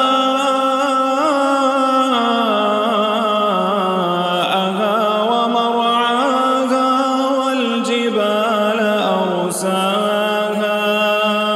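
A man's voice reciting the Quran in the melodic, chanted style, amplified through a microphone. He draws the words out into long held notes that rise and fall in pitch.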